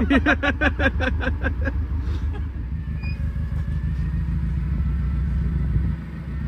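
A burst of rapid laughter, about six quick pulses a second, dies away after about two seconds. Under it an engine keeps running with a steady low rumble.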